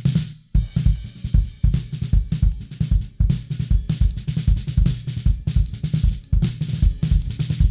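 Multitrack drum kit recording played back in a mix: kick, snare, hi-hat and cymbals in a dense, busy pattern of several hits a second.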